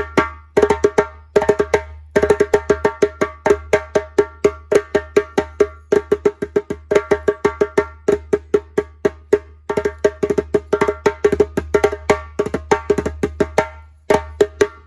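A cowhide-headed djembe played solo: fast runs of sharp hand strokes, ringing tones and slaps, in phrases with short breaks.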